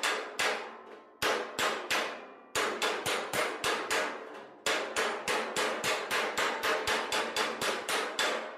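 Body hammer striking a welded seam in thin steel sheet against a flat dolly held behind it, in runs of quick, ringing blows about four or five a second with short pauses. This is planishing, hammer-on-dolly, which stretches the shrunk weld back out and straightens the heat-distorted panel.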